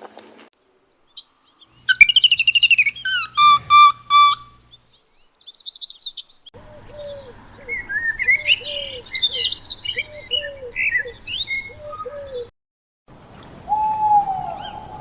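Birds chirping and whistling, beginning about two seconds in. A second stretch of calls has a lower call repeated about twice a second under higher chirps. Near the end, after a short gap, a single lower call.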